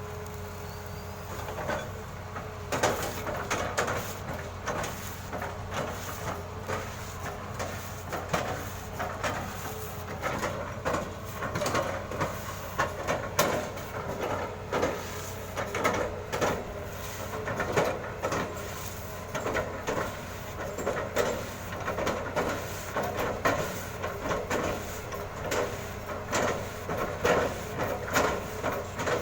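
Excavator working: a steady engine drone with frequent irregular clanks and knocks, typical of the bucket, arm and tracks moving.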